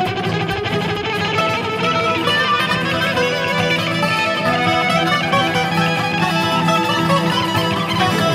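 Live instrumental duet of electric guitar and viola caipira, the ten-string Brazilian folk guitar, both playing plucked melodic lines with no vocals.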